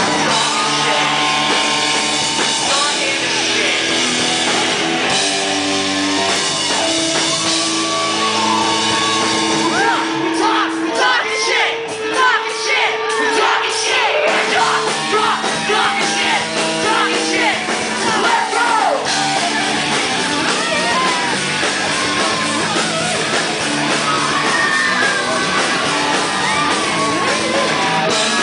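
Rock band playing live with a singer, heard in a large hall, with some shouting over the music.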